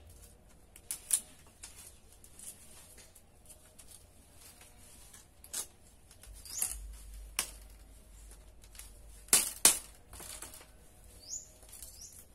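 Bamboo strips being handled and worked by hand: irregular sharp clicks and knocks, the loudest two close together about nine and a half seconds in. A few short high bird chirps come near the end.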